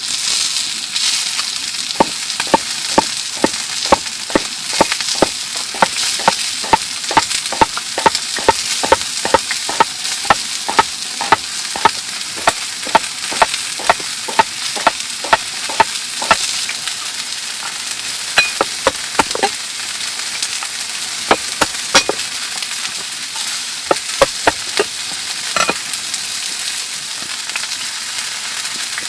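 Food sizzling as it fries, with a utensil clicking against the cooking pan in a quick steady rhythm of two or three strokes a second, then only a few scattered clicks in the second half.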